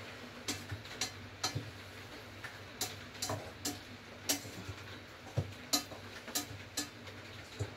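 A utensil clicking and knocking against a rice cooker's inner pot while freshly cooked rice is worked and scooped: sharp, short clicks at an uneven pace, a little under two a second.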